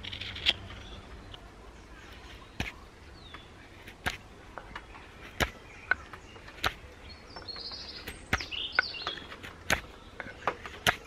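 Knife blade whittling the end of a dry hazel spindle: about ten sharp cutting strokes, roughly one a second. Birds chirp in the background a little past the middle.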